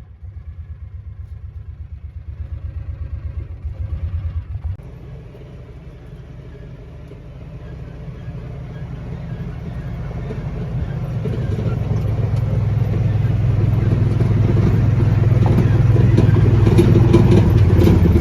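A motor vehicle's engine running as it drives along: a low pulsing engine note for the first four or five seconds, dropping off suddenly, then a rumble that grows steadily louder toward the end.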